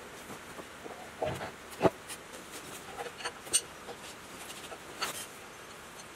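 Scattered metal clinks and knocks of hand tools and metal engine parts being handled during diesel engine reassembly, with one sharper knock about two seconds in.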